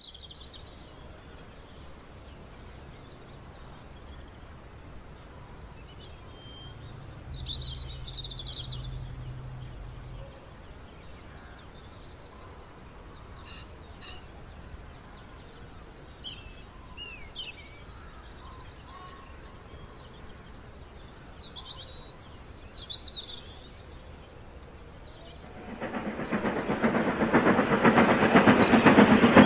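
Birdsong, scattered chirps and short trills, over a faint steady background. About four seconds before the end, an OO gauge model steam locomotive running on the layout's track rises quickly in level with a dense rattle and becomes the loudest sound.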